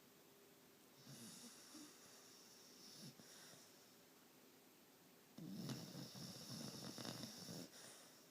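Snoring: two snoring breaths, a softer one about a second in and a louder, longer one just past halfway.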